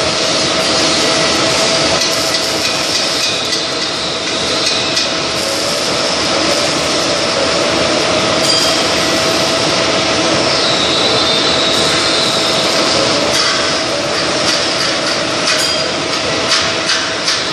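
Milling machine running, its spiral end mill side-cutting a flat of a hexagon on a round fitting: a steady cutting noise with a constant tone, and a few sharp clinks near the end.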